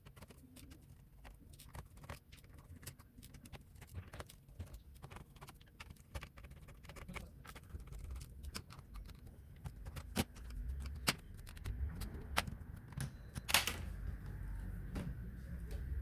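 Irregular small clicks and taps of tools against the plastic and metal parts of a Lenovo IdeaPad 300 laptop as it is taken apart, with one louder click near the end.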